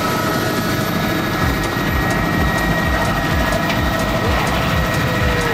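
Helicopter running with its rotor turning: a steady turbine whine, joined about a second and a half in by a regular low thump of the two-blade main rotor, several beats a second.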